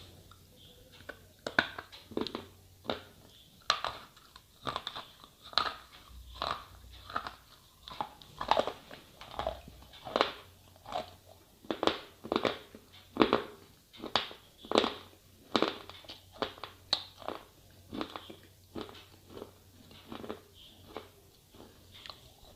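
Slate pencils being bitten and chewed close up: a steady run of sharp, brittle crunches, about one or two a second, starting about a second and a half in.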